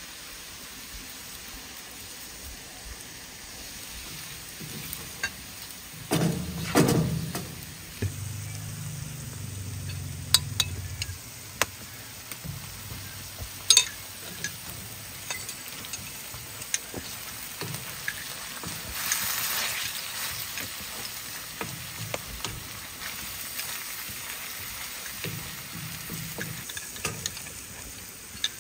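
Food frying in a skillet: a steady sizzle with frequent sharp clicks of a utensil against the pan. There is a louder thump about six seconds in and a brief rise in the sizzle about two-thirds of the way through.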